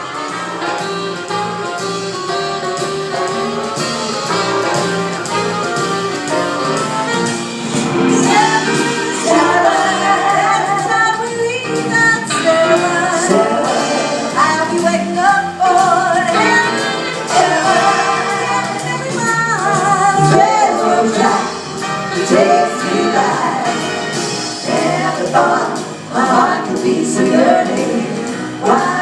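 Jazz-style music with several women singing together in harmony; instrumental at first, with the voices coming in and growing louder about eight seconds in.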